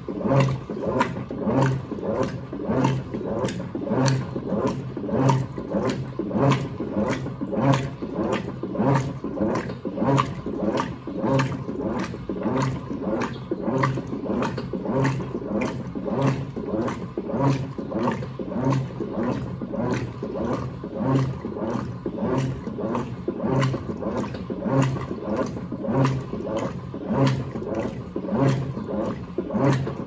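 Electrolux LTA15 direct-drive top-loading washing machine agitating a full load of bedding and towels. The motor hums in short, evenly spaced strokes, with water sloshing in the tub.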